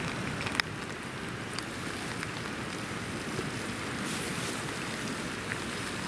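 Steady rushing of a fast-flowing river. A sharp click sounds about half a second in, and a few lighter clicks follow from handling an opened metal tin.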